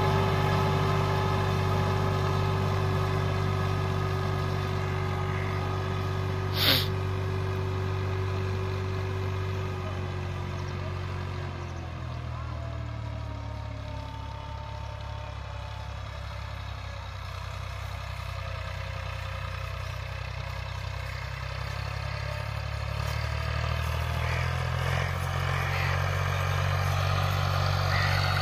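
Massey Ferguson 260 tractor's diesel engine running steadily under load as it pulls a 16-plate disc harrow through the soil. The sound fades somewhat in the middle and grows louder again near the end, and there is one sharp click about seven seconds in.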